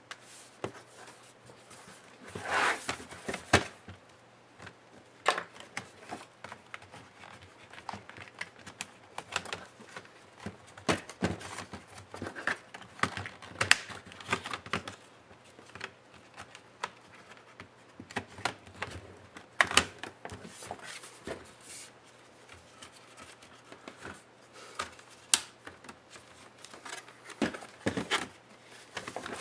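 Irregular clicks, taps and knocks of an HP Stream 13 laptop's plastic case being handled on a bench: pressed, opened, laid flat and turned over. The loudest cluster of knocks comes about three seconds in.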